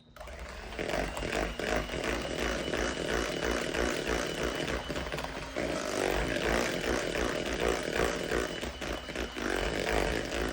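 A small motor running loudly with a rough buzzing sound; it starts abruptly.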